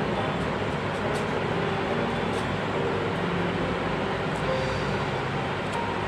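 Steady rushing background noise with faint background music, a few soft notes held briefly here and there.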